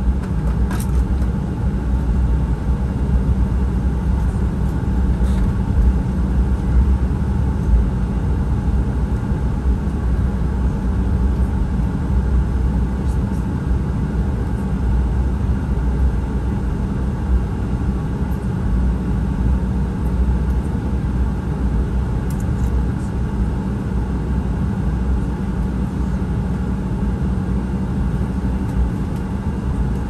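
Cabin noise inside an Embraer E175 regional jet taxiing: a steady low rumble from its twin GE CF34 turbofan engines at taxi power, with a few faint ticks.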